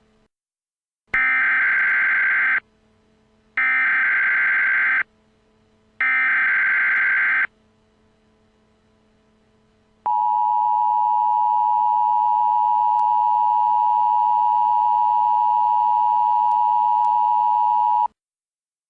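Emergency Alert System tones: three loud buzzing bursts of SAME header data, each about a second and a half long. Then comes the EAS two-tone attention signal, a steady dual tone held for about eight seconds that cuts off sharply.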